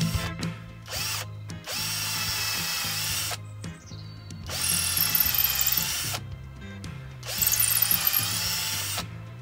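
Cordless drill running in three bursts of a second and a half to two seconds each, each spinning up and then holding a steady whine, as it works into a small piece of wood held on a chopping block. Background music plays underneath.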